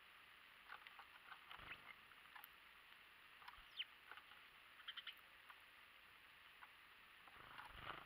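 Faint clicks and taps of small birds pecking at seed and shifting on a wooden feeder tray, in short clusters, with a couple of soft bumps. One short downward chirp about four seconds in.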